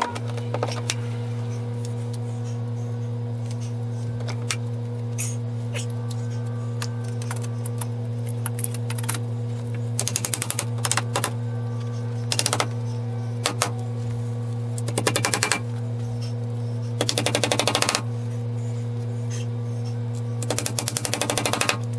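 A claw hammer driving finish nails into wooden window trim. The blows come in five quick rattling runs, many strikes a second, about ten, twelve, fifteen, seventeen and twenty-one seconds in, over a steady low hum.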